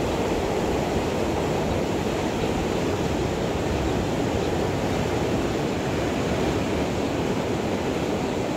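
Steady rush of surf washing over a shallow, rocky shore, mixed with wind on the microphone.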